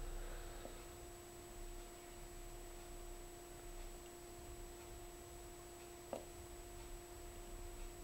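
Faint, steady electrical hum: one low tone with a fainter tone an octave above it, and a single soft click about six seconds in.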